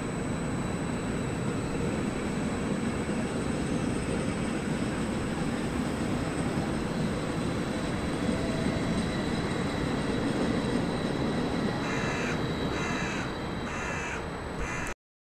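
Steady low rumble of railway traffic with a faint high whine. About twelve seconds in, a crow caws four times in quick succession. The sound then cuts off suddenly just before the end.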